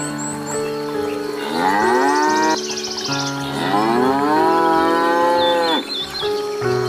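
Cattle mooing: two long, drawn-out moos, one after the other, the second cutting off about six seconds in, and another starting near the end.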